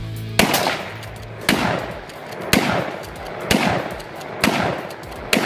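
Six suppressed .223 rifle shots from an AR-15-style rifle fitted with a Dakota suppressor, fired steadily about one a second, each a sharp report followed by a short echo.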